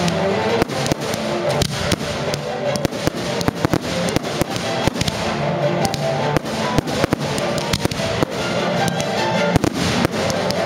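Fireworks display: aerial shells bursting in many quick, irregular bangs, heard over music.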